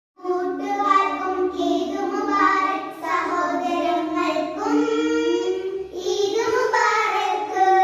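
A child singing a song, holding some notes long.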